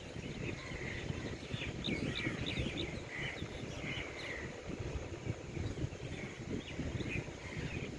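A flock of small birds chirping, with many short overlapping calls, over a steady low rumble of background noise.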